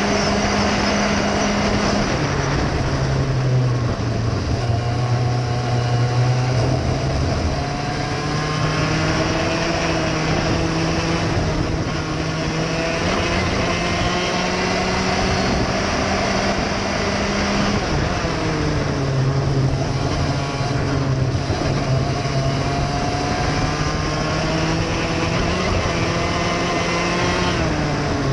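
Racing kart engine on a flying lap, its pitch climbing slowly along each straight. The revs drop sharply about two seconds in, again around eighteen seconds, and near the end, before climbing again.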